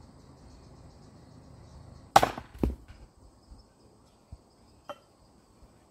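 An axe head striking a log end-on in one full-speed chop, a single sharp crack about two seconds in, followed half a second later by a second, duller knock.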